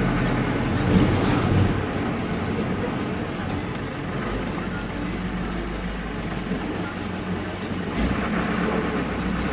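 Air-cooled Deutz F4L912 four-cylinder diesel of an Otokar M-2000 minibus running under way, heard from the cab over road noise. The engine note eases off about two seconds in and picks up again near the end.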